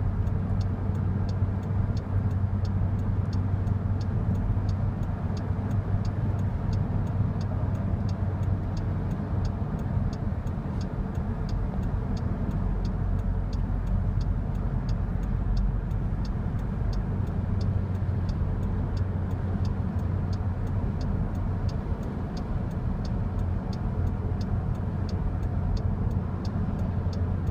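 Steady low rumble of a car's engine and tyres heard inside the cabin while driving on a highway. A regular ticking runs over it, about one and a half ticks a second, typical of the car's indicator relay.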